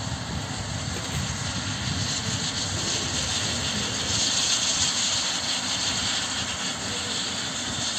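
Helicopter running on the ground with its turbine engine on and main rotor turning: a steady rushing hiss that grows louder in the high range about halfway through.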